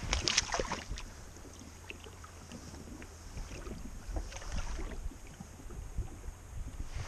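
Water splashing in the shallows as a pike is lowered back into a loch by hand, with a burst of splashing in the first second and smaller splashes about four seconds in. Wind rumbles on the microphone underneath.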